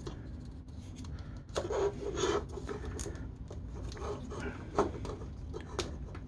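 Plastic parts of an Acid Rain Marine Waterstrider toy being handled and fitted together: scattered light clicks and rubbing, with a louder scraping stretch about a second and a half in and more clicks later.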